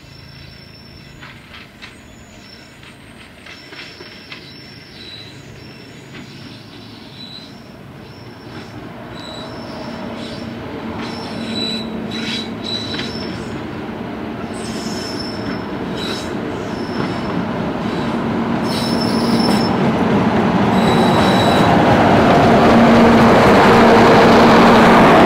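Two Class 50 diesel locomotives with English Electric 16-cylinder engines, running together at the head of a train, growing steadily louder as they approach and pass close by, with a steady low engine drone building toward the end. Short high-pitched squeals come and go in the first half, typical of wheel flanges squealing through the pointwork.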